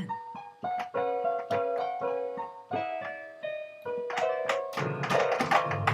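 Piano played as single struck notes, about two to three a second, with a denser, louder run of notes in the last second.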